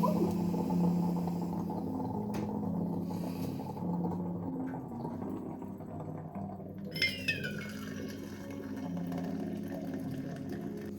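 Soft background music of sustained low notes, with a short high sound falling in pitch about seven seconds in.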